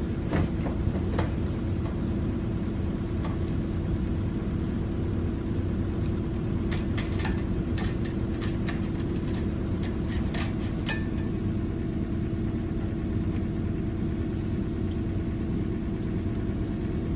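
Skid-steer loader's engine running steadily, with a few sharp clicks and knocks from about seven to eleven seconds in.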